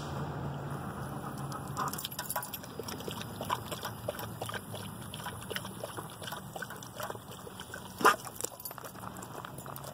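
Weimaraner lapping water from the stream of a push-button drinking fountain: a quick, irregular run of wet clicks and slurps starting about two seconds in, with one much louder sound about eight seconds in.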